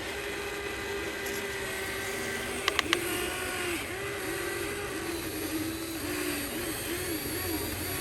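Electric motors of a Huina radio-controlled model excavator whining steadily; in the second half the pitch dips and recovers again and again as the machine works. Three sharp clicks come close together about three seconds in.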